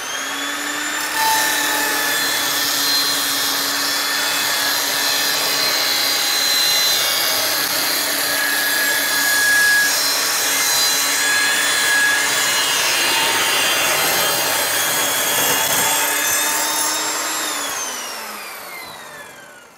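Evolution Rage 5-S table saw's 15-amp motor and blade running while a board is ripped along the fence. The motor comes up to speed with a rising whine, then runs steadily with the hiss of the blade cutting wood. Near the end it winds down with a falling whine as the blade coasts to a stop.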